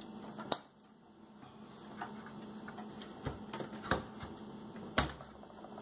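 Computer memory sticks being handled: about five short, sharp plastic clicks and knocks at irregular spacing.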